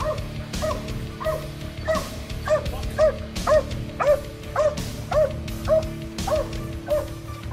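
A dog barking over and over at an even pace, about two barks a second, over background music.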